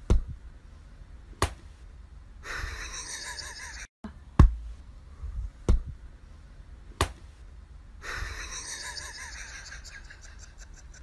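Sharp smacks in a small room. There are two near the start, then after a brief break three more about a second and a half apart, and each group is followed by a couple of seconds of soft hiss.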